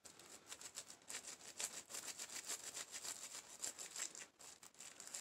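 Faint, quick scratchy strokes of a small gun-cleaning brush scrubbing the ejector of an AK-47 bolt carrier group, several strokes a second, to loosen built-up grit and grime.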